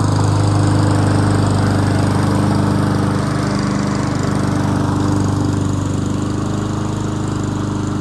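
Gas lawn mower engine running steadily at a constant speed.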